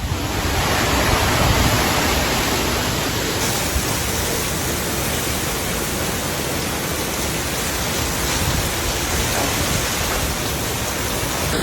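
Cyclone-force wind and heavy rain, a steady, dense rushing noise with no breaks.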